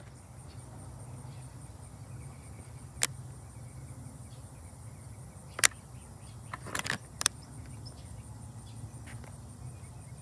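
Outdoor ambience: an insect trilling steadily at a high pitch over a low steady rumble, broken by a few sharp clicks about three seconds in, at about five and a half seconds, and in a short cluster near seven seconds.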